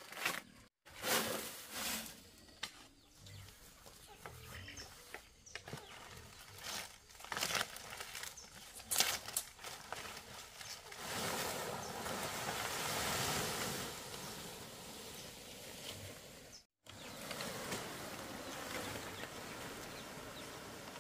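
Fresh palm fronds rustling and crackling as they are handled, with a longer steady swishing as a bundle of fronds is moved and dragged over grass.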